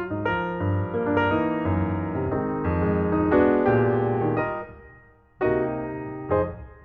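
Background music played on piano or electric piano: chords over a bass line, breaking off briefly about five seconds in before the notes resume.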